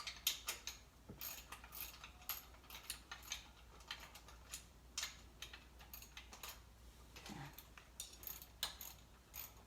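Faint, irregular small metallic clicks and taps of bolts being started back in by hand during reassembly, left loose until all are in.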